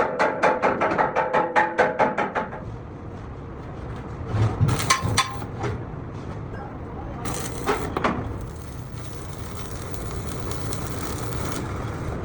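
A fast, even run of ringing strikes for the first two seconds or so, then a few scattered clanks over a low steady hum.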